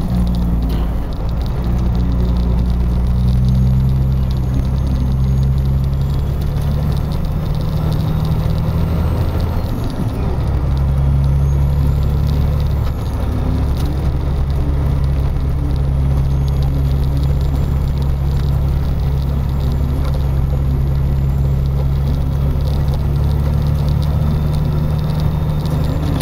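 Car driving, heard from inside the cabin: a steady low engine hum over road and tyre noise on a snow-covered road. The hum's pitch shifts about ten seconds in and again a few seconds later.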